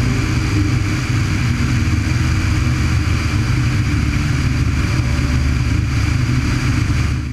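Light single-engine propeller aircraft's piston engine and propeller running steadily in flight, a low even drone mixed with a rush of airflow over the microphone out on the wing. The sound cuts off suddenly at the very end.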